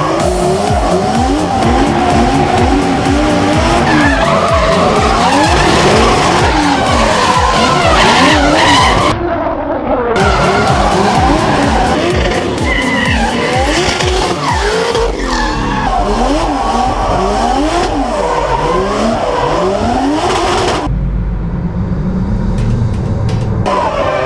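Drift cars sliding: engines revving up and down again and again over the screech of spinning, sliding tyres. The sound changes abruptly at edit cuts and is duller near the end.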